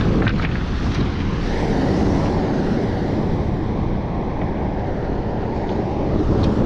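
Wind buffeting the microphone as a steady low rumble, with surf washing on the shore beneath it.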